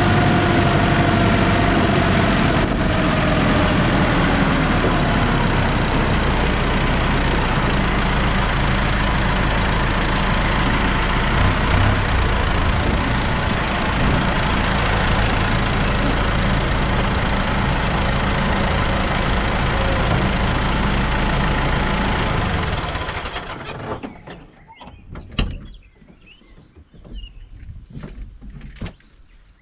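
Tractor engine running steadily, its pitch easing down a little in the first few seconds, then shut off about three quarters of the way through. A few sharp knocks and clicks follow.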